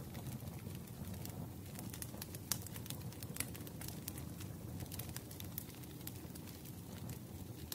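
Crackling wood fire: irregular sharp pops and snaps over a steady low rumble.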